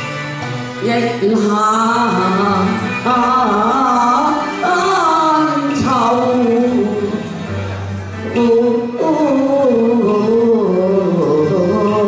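A singer's voice carrying a wavering, gliding melody line over instrumental accompaniment, amplified through a hall's PA, with brief pauses between phrases.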